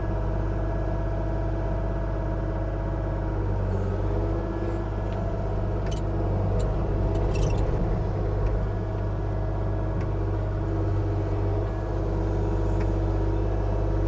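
Kubota KX040-4 mini excavator's diesel engine running steadily under hydraulic load while it digs a ditch, with a few brief knocks from the bucket working the dirt about six and seven and a half seconds in.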